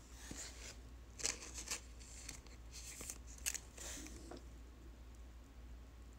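Faint crinkling and crackling of a clear plastic card sleeve as a trading card is slid into it and handled: a run of short, sharp rustles over the first four seconds, then quieter, with a low steady hum underneath.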